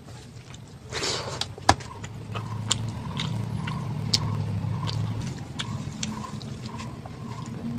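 Close-miked eating sounds: chewing with sharp crunchy clicks, over a low steady hum that swells in the middle and fades again.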